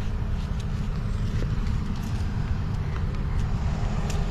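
Diesel farm tractor engine running steadily, a low rumble.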